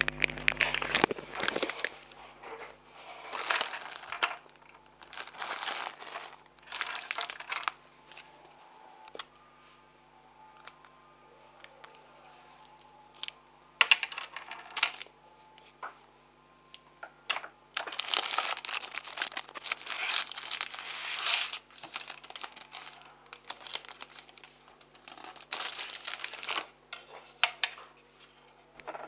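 Plastic packaging crinkling in repeated bursts as it is handled, the longest stretch about two-thirds of the way through, over a faint steady electrical hum.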